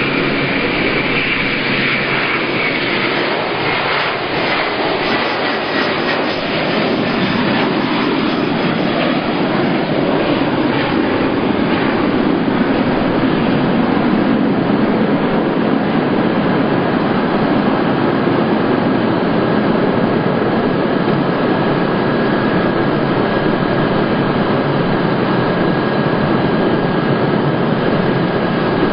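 Airbus A330's twin turbofan engines at takeoff power, a loud steady jet noise as the airliner lifts off and climbs away. A high whine falls in pitch over the first several seconds.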